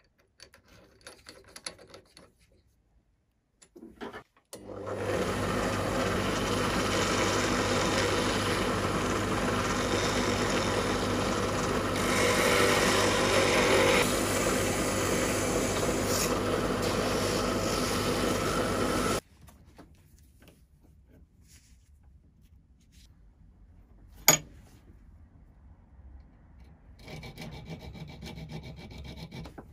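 Bench drill press running with a threaded screw spinning in its chuck while abrasive cloth is held against it, a steady hum under a loud rubbing hiss that stops abruptly about two-thirds of the way through. Before it, a few light clicks as the chuck is tightened; afterwards, a single sharp knock and then light scraping of a file over the threads of a screw held in a vise.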